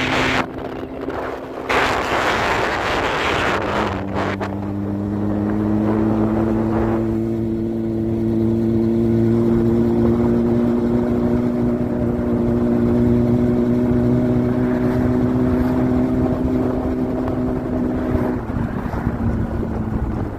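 Honda CBR600RR inline-four engine under way at steady cruising revs. Wind buffets the microphone for the first few seconds, then the engine holds a steady, slowly climbing note until it drops away near the end.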